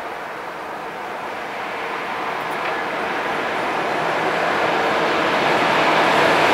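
Electric locomotive approaching on the line, its rumble of wheels and running gear growing steadily louder as it nears.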